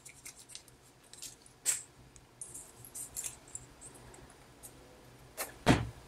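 Light metallic clicks and rattles of a stainless steel deployant (butterfly) clasp being handled and opened as a leather watch strap comes off the wrist, with one louder dull knock near the end.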